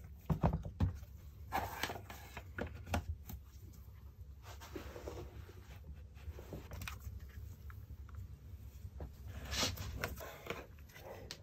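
Handling noise from a laptop being moved on a rubber work mat: scattered knocks and clicks and some rubbing as it is turned over, with a louder knock and rustle near the end as the lid is opened.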